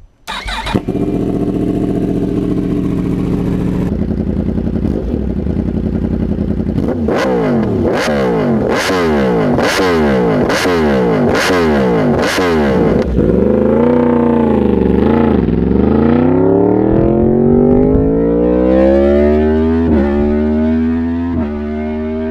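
Yamaha R1's crossplane-crank inline-four running steadily, then revved in a string of quick throttle blips. It then pulls away with the pitch rising, dropping briefly at each upshift.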